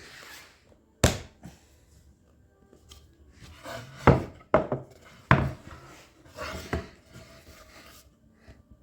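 Pine boards being handled and fitted together: about five sharp wooden knocks, the loudest a little over four seconds in, with scraping and rubbing between them.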